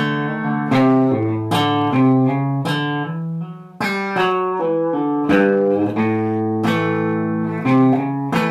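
Clean electric guitar, a Fender Telecaster, playing a slow country chicken pickin' lick: separate plucked notes with sharp attacks, about two a second, each ringing on.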